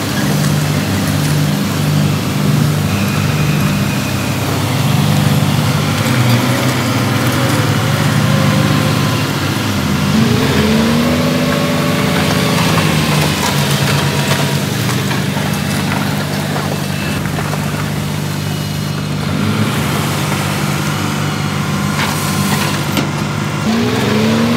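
Heavy diesel engine of earth-moving machinery running steadily under load. It revs up and back down about ten seconds in, and revs up again near the end.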